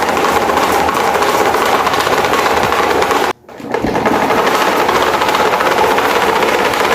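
CCE electric fan rattling hard and fast as it vibrates, the shaking fan working its way across the floor. The racket cuts out suddenly a little past three seconds in and builds back up within half a second.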